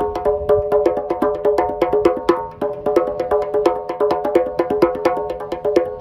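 Two djembes played with bare hands in a fast, steady rhythm, several strokes a second. Between strokes the drumheads ring with a clear pitch.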